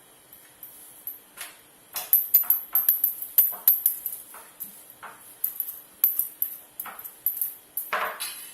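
Irregular light clicks, knocks and jingling taps of hands and utensils working the dough on a board.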